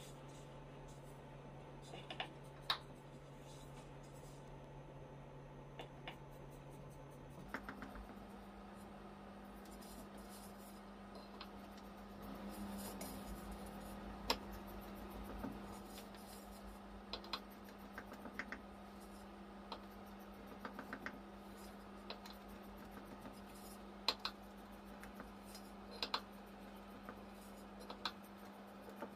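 Scattered light taps, clicks and scraping from hands and utensils at work preparing baklava, over a low steady hum that shifts higher about seven seconds in.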